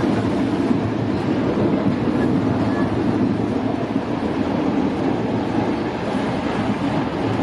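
A 4x4 driving off-road: a steady, unbroken rumble of engine and driving noise.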